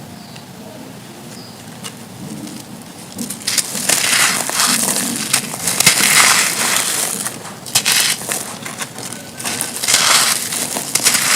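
Dry, soft, dusty concrete chunks crunching and crumbling as they are crushed. A few light crackles come first, then dense crunching from about three seconds in, swelling and easing in waves.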